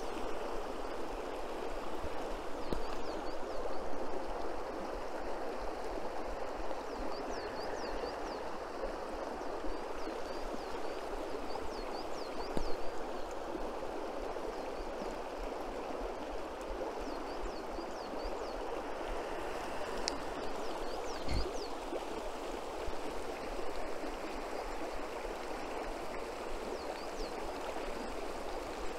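Stream water running steadily, with faint high chirps in short groups now and then.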